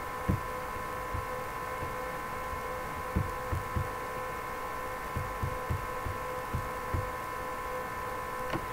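Steady electrical hum with a faint high whine of several held tones, broken by irregular soft low thumps.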